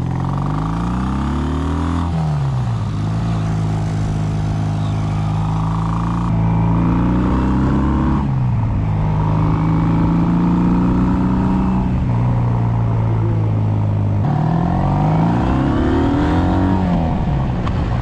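Kawasaki W800 parallel-twin engine breathing through stainless headers and reverse-cone megaphone mufflers, accelerating through the gears. The revs climb and then drop at an upshift about two seconds in, again about eight seconds in, and near the end, with wind noise on the camera microphone underneath.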